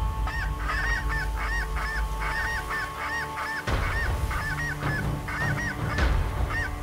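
Snow geese calling: a continuous chorus of short, high, yelping calls, several a second, over a low wind rumble.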